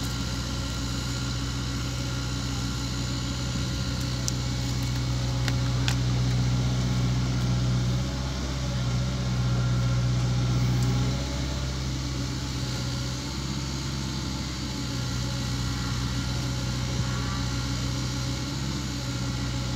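Caterpillar 305.5E2 mini excavator's diesel engine running steadily, getting louder under hydraulic load for several seconds in the middle as it lifts and swings a bucket of soil.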